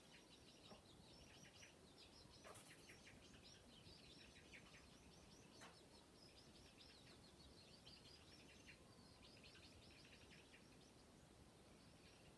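Faint, rapid high chirping of small birds: many very short calls run together in a continuous chatter, broken by a few sharp clicks in the first half.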